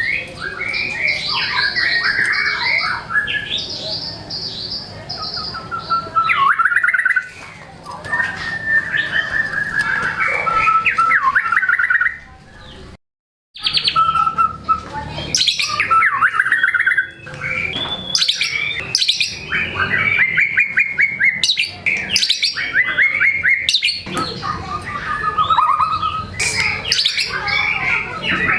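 White-rumped shama in full song, running through its repertoire: a fast, varied stream of loud whistles, rapid trills and harsh notes. There is one short break near the middle.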